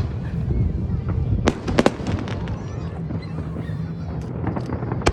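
Fireworks bursting: a quick cluster of sharp bangs about a second and a half in, with a few lighter cracks later.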